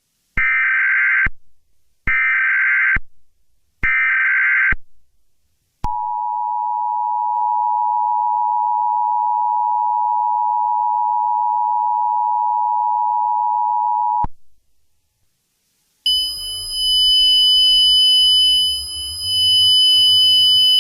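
Emergency Alert System tones: three short bursts of SAME header data, each just under a second, then the two-tone attention signal held steady for about eight seconds and cut off, the signal that an emergency broadcast, here a tornado watch, is about to follow. About 16 seconds in, a different sound with steady high tones starts.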